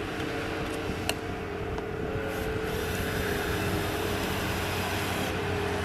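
Cordless drill driving a screw through a plastic coping clip into the pool edge, its motor whining for a couple of seconds from a little before the middle and stopping shortly before the end, over a steady low mechanical hum.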